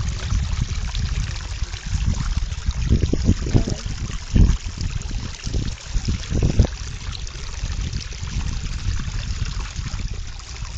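A dog wading and splashing through a shallow stream, water trickling around its legs, with irregular louder splashes, the strongest about four and a half and six and a half seconds in.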